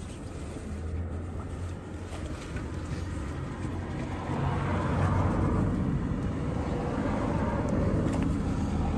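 Low, steady vehicle rumble that grows louder about four seconds in.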